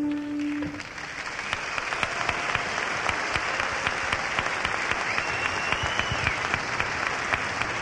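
Concert audience clapping and cheering as an acoustic song ends. The last held note dies away in the first second, the clapping swells into steady applause, and a high whistle rises out of the crowd about five seconds in.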